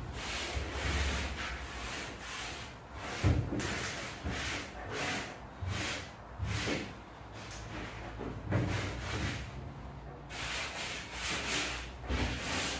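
Cloth rubbing over the metal load floor of a Mk1 VW Caddy, wiping off dust with panel wipe: a run of irregular scrubbing strokes.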